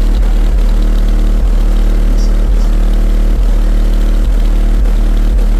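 Car audio subwoofers playing a deep, steady bass drone at extreme volume during an SPL (sound pressure level) demo run.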